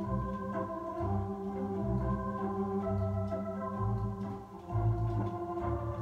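A two-manual console organ with pedalboard playing a polka: sustained chords over a bass line that moves every beat or two.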